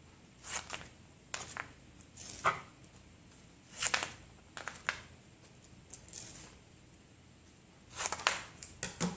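Precut strips of metal foil tape being handled, crinkling and rustling in short bouts several times.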